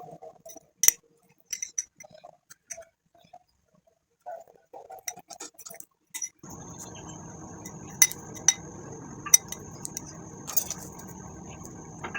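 A spoon or utensil clinking and knocking against a bowl in sharp, scattered taps while ingredients are mixed. About six seconds in, a steady hiss with a high whine comes in under the taps.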